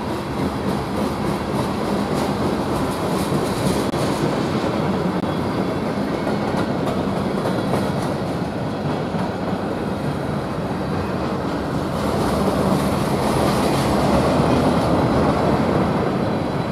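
Slow freight train rolling past: a steady rumble of wheels on rail with scattered faint clicks, swelling slightly near the end.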